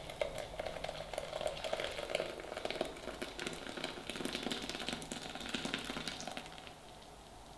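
Curdled milk and whey pouring from a steel pot through a mesh strainer into a stainless steel bowl: a continuous crackly splashing that tapers off and stops about a second before the end.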